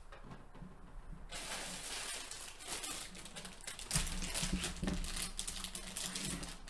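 Clear plastic bag crinkling and rustling as a large plastic model kit sprue is lifted and handled inside it, starting about a second in.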